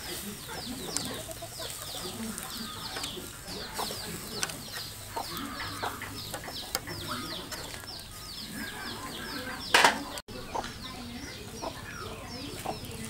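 Chicks cheeping repeatedly, a fast run of short, high, falling peeps. Light metallic clicks come from tongs on a wire grill, and there is one short loud rasp about ten seconds in.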